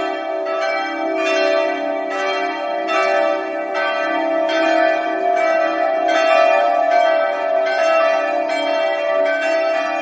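Church bells ringing in a steady, continuous run of strokes, about three strokes every two seconds, each bell's tone ringing on under the next.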